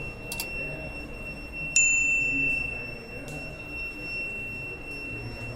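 Piezo buzzer of a contactless doorbell alarm sounding a steady, high-pitched tone, alerting that someone is at the door. Nearly two seconds in, a click and a short higher beep sound over it.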